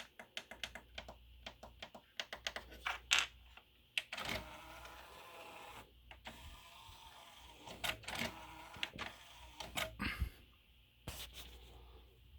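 Small disc-player mechanism in an Onkyo FR-N9 CD/MiniDisc system working: a rapid run of clicks, then more spaced clicks and two stretches of motor whirring.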